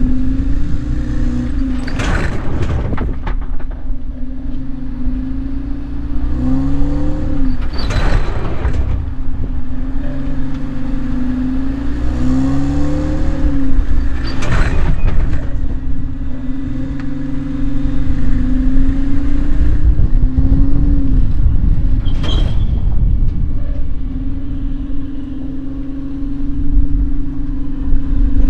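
Tow car's engine pulling a camper trailer away again and again, its pitch rising with each start, with four sharp knocks, about one every six seconds, as the trailer's surge brake coupling is pushed in under braking.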